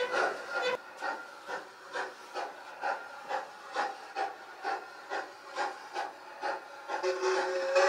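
Steam locomotive exhaust chuffing in a steady rhythm of about two beats a second, with a whistle starting at the very end.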